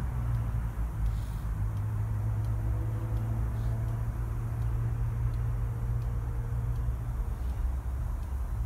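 Distant low rumble of a pair of Class 37 diesel locomotives, English Electric V12 engines, pulling away down the line. The drone stays steady with faint engine tones above it.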